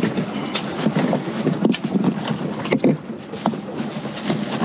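Irregular knocks and thumps as a large almaco jack is shoved into a fiberglass fish box packed with ice, about five sharp bumps over a steady background of wind noise.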